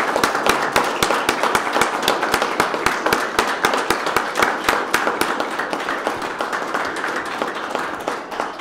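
Small audience applauding: dense hand claps that gradually thin out and fade toward the end.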